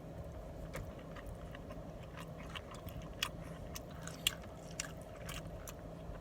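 A person chewing a mouthful of carne asada steak: irregular soft clicks and wet mouth sounds, over a steady low background hum.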